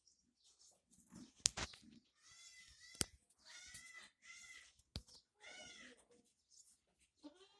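Goats bleating: four short, high bleats in a row, with another starting near the end. A few sharp clicks fall between them.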